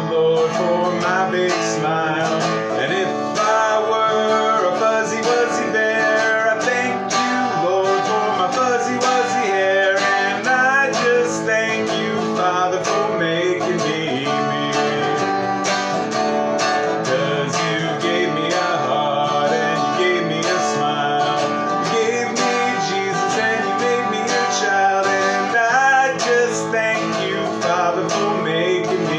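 Red archtop hollow-body guitar strummed in a steady rhythm of chords, with a man singing along.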